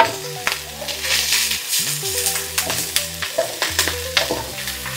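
Food sizzling in hot oil as a stir-fry is tossed in a pan, with frequent short scraping strokes of the spatula. Soft background music plays underneath.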